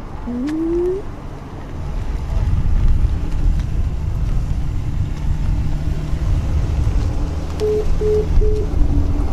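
Infiniti G35 coupe's VQ V6 engine and exhaust running, with a rev rising in pitch in the first second, then a steady low drone that grows louder after about two seconds. Three short beeps near the end.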